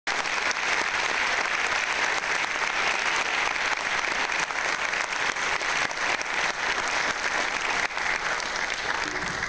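Concert-hall audience applauding, a dense steady clapping that starts to fade near the end.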